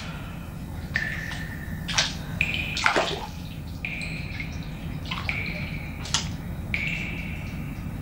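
Water splashing and sloshing as a person wades down steps into a steaming pool, with a few sharper splashes about two, three and six seconds in.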